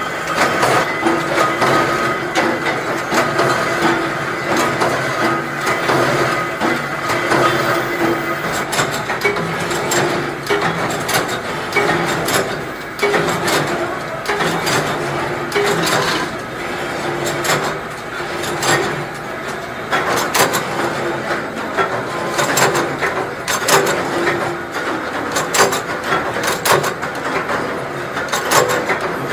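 Ammunition production machinery running: continuous rapid clicking and clattering over a steady machine hum.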